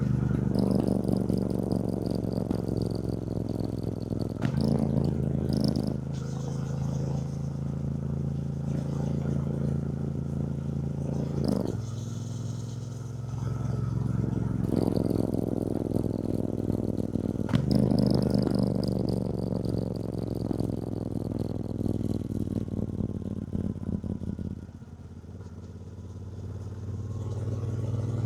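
2024 Triumph Bonneville T120's 1200 cc parallel-twin engine running under way, its pitch changing abruptly three times as gears are shifted. About 25 seconds in the engine eases off and quietens, then picks up again near the end.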